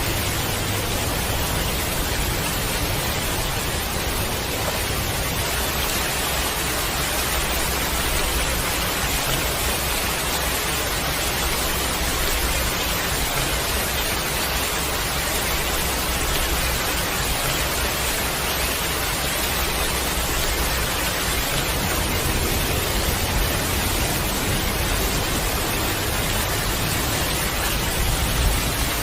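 Heavy rain falling in a steady, even hiss, with a low rumble underneath at the start and again through the last third.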